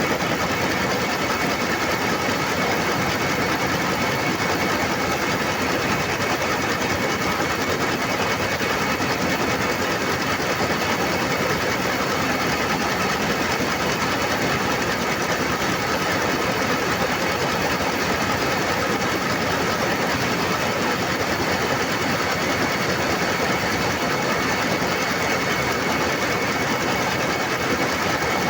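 Factory machine running fast and steady: a dense, rapid mechanical rattle with a faint steady high whine.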